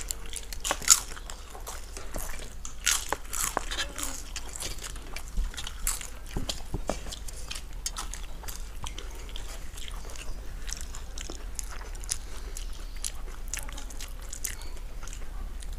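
Papad, a crisp fried lentil wafer, being bitten, crunched and broken apart: a run of sharp crackling bites, densest over the first few seconds and then thinning out to scattered crunches.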